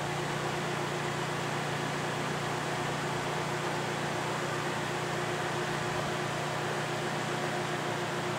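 Tominaga TRE-1700D radial arm drill running while its arm is power-lowered down the column: a steady motor hum with a low tone and no knocks.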